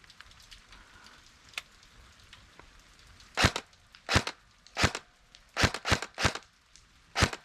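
K2A airsoft rifle firing a string of single shots, about eight sharp cracks spaced less than a second apart, starting about three seconds in.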